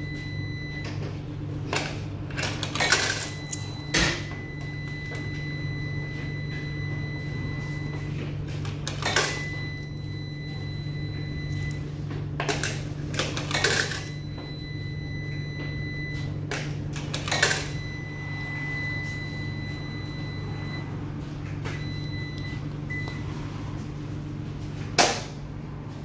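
Commercial coin-operated washing machines humming steadily, with a faint high electronic tone that comes and goes. Short sharp clinks and clunks every few seconds as coins are fed into a washer's Greenwald coin slot, the loudest near the end.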